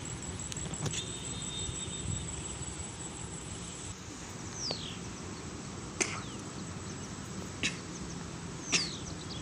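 Outdoor ambience: a steady low hiss, with three or four short falling chirps and sharp clicks spread through the second half.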